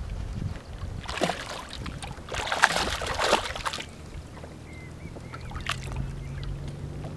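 A hooked zander thrashing and splashing at the water's surface beside a boat's hull: a short splash about a second in, then a longer, louder burst of splashing from about two and a half to four seconds.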